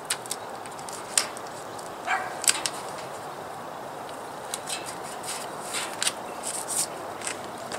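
Blue painter's tape being handled: short crackling rips and clicks as it is pulled off the roll and pressed down around the chimney flue, over a steady background noise. A short falling call sounds about two seconds in, just before the loudest click.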